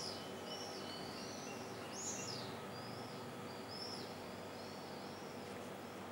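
Small birds chirping over faint outdoor background noise: a string of short, arched chirps repeating about every half second, the loudest about two seconds in.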